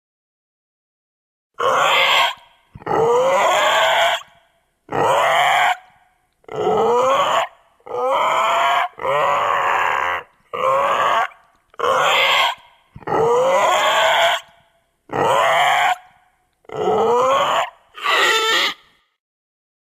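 Baby dinosaur sound effect: a series of about a dozen short calls with gliding, rising and falling pitch, separated by brief silences, starting a second and a half in.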